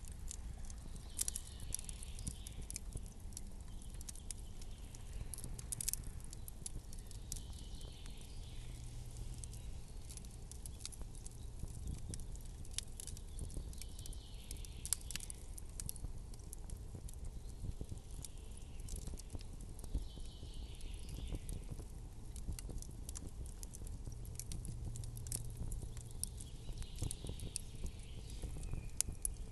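Campfire crackling: irregular sharp pops and snaps of burning wood over a low, steady rumble.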